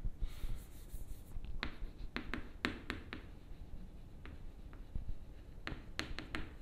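Chalk writing on a blackboard: a scratchy stroke in the first second, then clusters of short taps and scrapes as letters are written.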